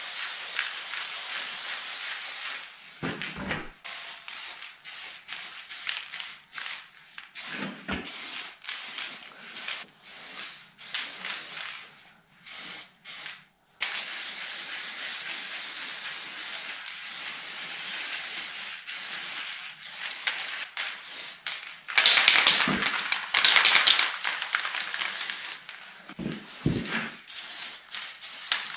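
Aerosol spray paint can hissing in repeated bursts, some short and some several seconds long, loudest about three quarters of the way through. A few dull knocks come between the bursts.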